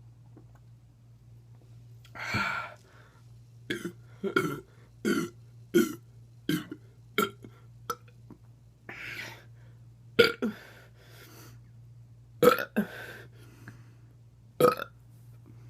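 A man burping over and over after drinking carbonated Diet Coke: a quick run of about seven short burps roughly two-thirds of a second apart, then after a pause several louder single burps.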